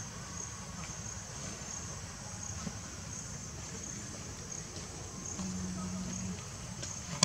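Insects, crickets or similar, chirping in a steady high-pitched chorus that pulses evenly, over a low background rumble, with a brief low hum about five and a half seconds in.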